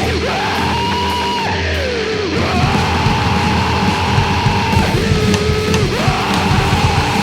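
Cybergrind music: heavy distorted guitar chords over dense, rapid drumming, with long high held tones that hold steady and then slide down in pitch.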